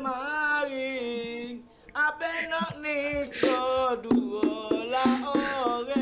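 A man singing a Malay song line with long held notes, pausing briefly about a second and a half in before the next phrase.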